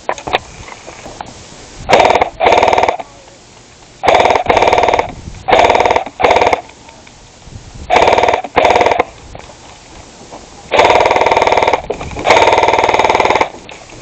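Paintball marker firing in rapid bursts: several short bursts, mostly in pairs, then two longer bursts of about a second each near the end.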